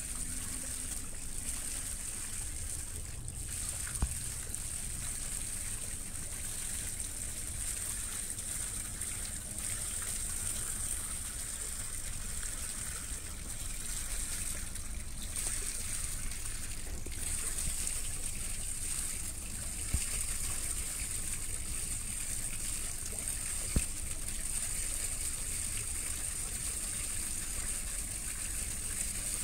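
Steady rushing and splashing of water stirred up by a large tanker barge moving past close by in a narrow canal. Under it runs a low rumble, over it a steady high hiss, and a few sharp clicks come through.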